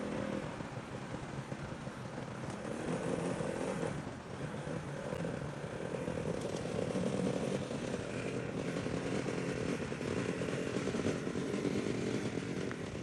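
A motor vehicle's engine running steadily as it drives through a river, its level swelling a little now and then.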